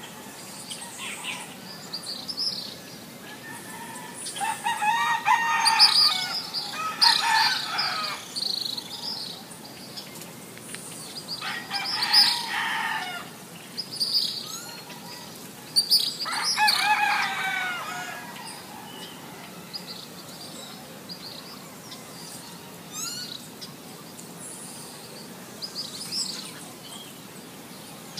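Rooster crowing several times, each crow lasting one to two seconds, with small birds chirping between the crows.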